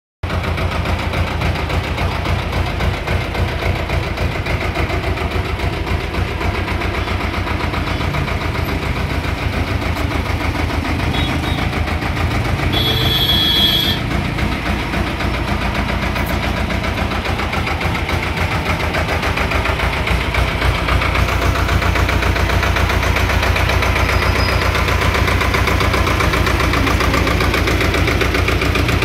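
Sonalika mini tractor's diesel engine running steadily, with a low, fast even pulse; it gets a little louder in the last third. A brief high hiss comes about halfway through.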